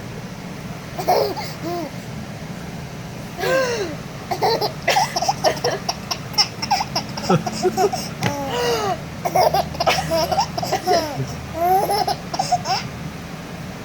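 Baby laughing in many short bursts, each rising and falling in pitch, set off by his mother's hiccups.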